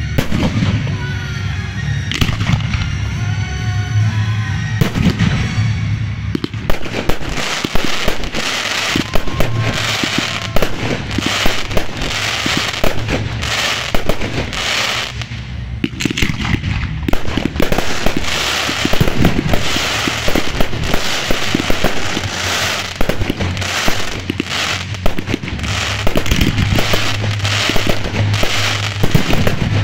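Aerial fireworks shells bursting. A few separate bangs come first, then from about six seconds in a rapid, near-continuous barrage of bangs and crackles.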